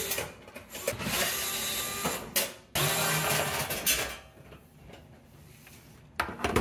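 DeWalt 8-volt cordless screwdriver motor whining in short runs of about a second each, backing the screws out of the sheet-metal back of the range's control panel. A sharp knock sounds near the end.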